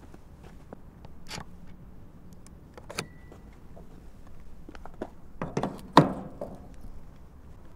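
Plastic handling clicks from an EV wallbox charging connector, ending in a sharp clack about six seconds in as the plug is pulled from its holder. A short beep sounds about three seconds in.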